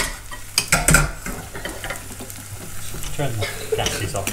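Vegetables sizzling in stainless steel saucepans on a gas hob, with stirring and a few sharp metal clinks of pan and utensil in the first second.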